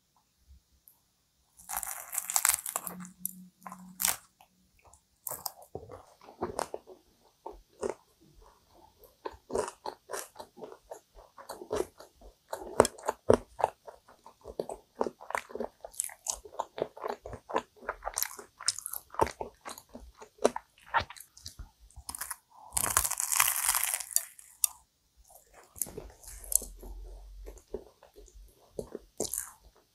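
Bites into a crunchy, cream-filled kouign-amann pastry with chocolate cream filling (a chocolate amanchou). There is a loud crunch about two seconds in and another a little past twenty seconds, with steady chewing and the flaky crust crackling between them.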